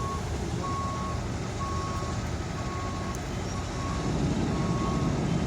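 Backup alarm on heavy equipment beeping about once a second, each beep about half a second long, over a diesel engine running. The engine grows louder about four seconds in.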